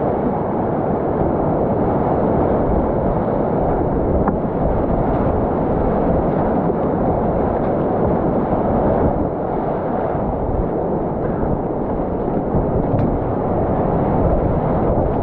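Whitewater rapids rushing loud and steady, a muffled, low rushing with water splashing over the kayak and onto the camera.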